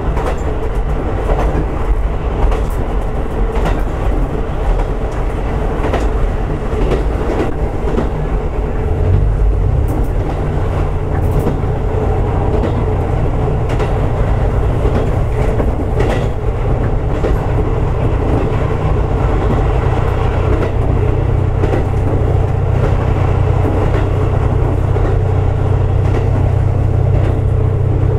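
Diesel railcar running along the line, heard from inside the car: a steady rumble with occasional wheel clicks over rail joints, and a low engine drone that grows stronger about a third of the way in and holds.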